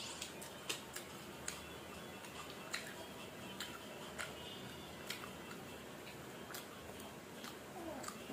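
Wet mouth clicks and smacks of someone chewing ripe mango slices, short and sharp and coming irregularly about once a second, over a faint steady hiss.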